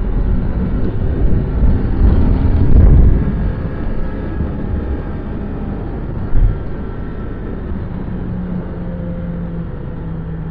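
Yamaha XJ6 Diversion F's stock inline-four engine and exhaust running while the bike is ridden, under heavy wind rumble on the microphone. It is loudest about two to three seconds in, then settles to a lower, steadier note, with one short thump midway.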